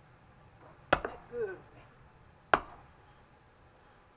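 Two blows of a sledgehammer on a steel splitting wedge set in a log, each a sharp metallic clink with a brief ring, about a second and a half apart.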